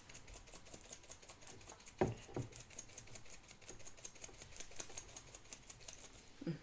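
A fast, even run of light crisp clicks and scraping, with a sharper knock about two seconds in: crunchy dry chatpate ingredients being stirred together in a bowl.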